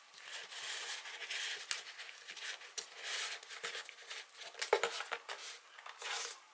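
Over-ear headphones being folded and packed into a fabric-covered hard-shell carrying case: uneven rustling and scraping with light clicks and knocks, one sharper knock a little before the five-second mark.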